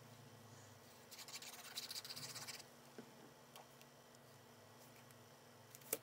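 Faint scratchy rustle of cardstock being handled as liquid glue is applied to it, lasting about a second and a half, then a few light taps as the card is pressed onto the page.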